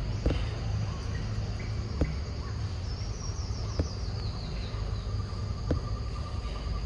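Insects droning steadily at a high pitch, with a short falling trill of chirps partway through and a held mid-pitched note from a third of the way before the end. Scattered soft clicks come every second or two.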